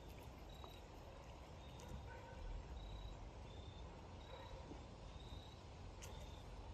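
Faint outdoor background rumble with a short, high chirp that repeats about once a second.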